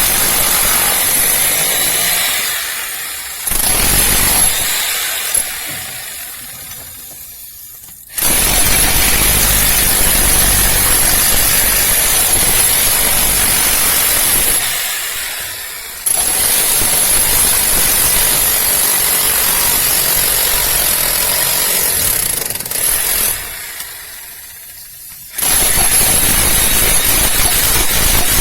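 Electric demolition hammer breaking up cast concrete, running in long stretches with a high steady whine. It winds down and stops briefly three times, then starts again abruptly.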